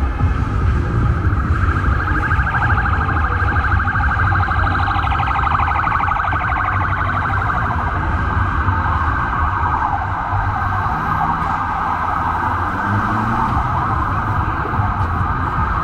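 Emergency vehicle siren sounding with a fast warbling yelp, over the low rumble of city traffic.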